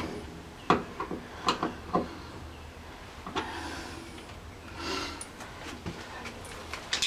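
Light clicks and knocks of hands and a tool working on a wall light switch, with a couple of short rubbing scrapes later on.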